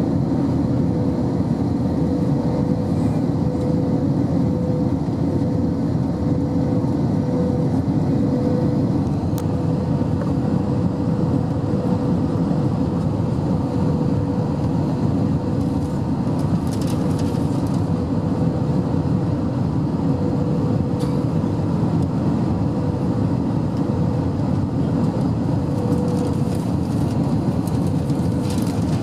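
Airbus A321 cabin noise on final approach, heard from a window seat: the engines and the rush of air over the extended flaps make a loud, steady roar with a steady droning tone running through it.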